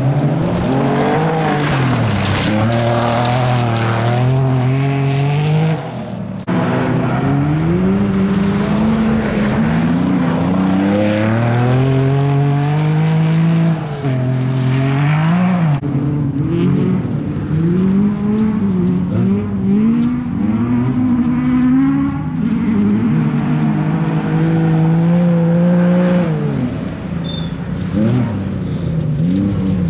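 Alpine A310 rally car's engine revving hard, its pitch climbing and then dropping back again and again as the car accelerates through the gears and lifts off for corners, with some tyre noise.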